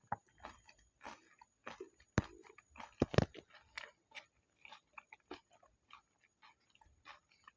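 Close-miked chewing and crunching of pani puri: crisp hollow puris cracking between the teeth amid wet chewing, in irregular crackles with the loudest crunches about two and three seconds in.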